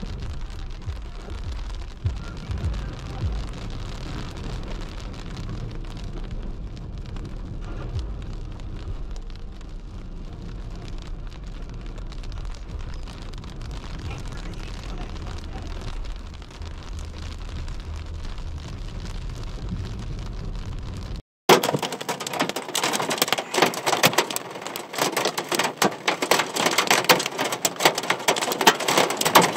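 Low, steady road and engine rumble heard inside a car driving in rain. About 21 seconds in it cuts to a louder, dense pattering of small hail and rain falling outside.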